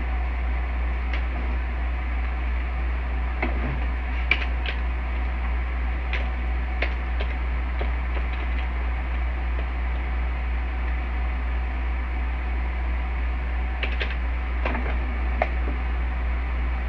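Steady low hum and hiss from a computer recording setup, with scattered light clicks of a mouse and keyboard in a few small clusters as values are entered.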